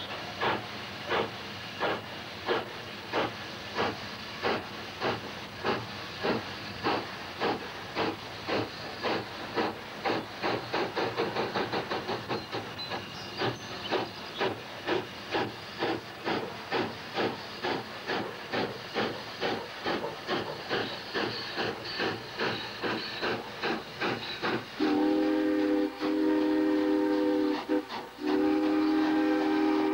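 Steam locomotive exhaust chuffing in a steady beat as it works a heavy train, the beats coming faster for a few seconds in the middle. Near the end comes the loudest sound: two long blasts on a deep, several-note chime steam whistle.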